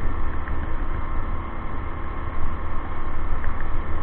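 Steady wind noise buffeting the microphone of a moving e-bike at about 27–28 mph, over the constant low drone of the small gas generator engine carried on the bike.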